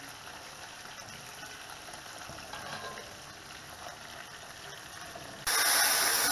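Liquid poured into a hot frying pan sets off a sudden loud sizzle and hiss of steam about five and a half seconds in. Before that, a quieter steady cooking noise comes from thick turn cornmeal being stirred in a pot.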